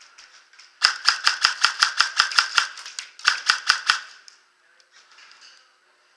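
Airsoft gun firing rapid single shots, about five a second: a string of about ten sharp cracks, a short pause, then four more.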